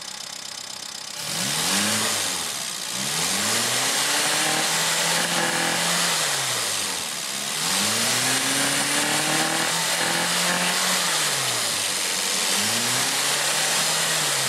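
Classic Mini's A-series four-cylinder engine, stationary, being revved four times in a row. Each rev rises, holds and falls back. The first is a short blip; the middle two are held for a few seconds each.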